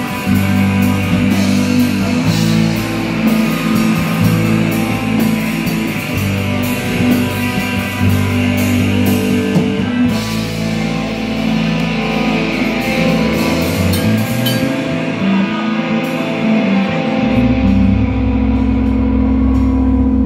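Heavy metal band playing live: electric guitars, bass and drum kit, with drums hitting steadily for about the first half, then cymbals washing out and a low chord held and ringing near the end.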